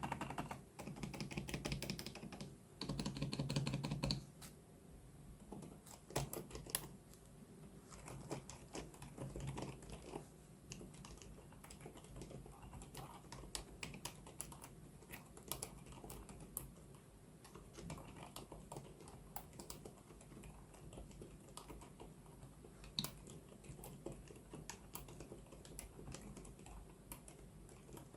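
Typing on an FL-Esports CMK75 mechanical keyboard with Outemu Lime silent tactile switches: a steady run of quick, irregular keystrokes. The keystrokes are louder and denser in the first few seconds.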